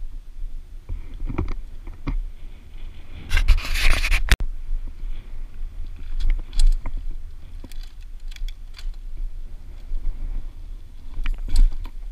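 Riding sounds of a Jupiter Atlas HD mountain bike heard from a helmet camera: a steady low wind rumble on the microphone, tyre noise on paving, and scattered clicks and rattles from the bike. A loud scraping burst about three seconds in ends in a sharp click.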